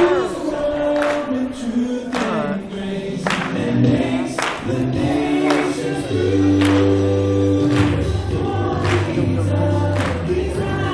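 A choir singing a gospel song over accompaniment, with a steady beat about once a second.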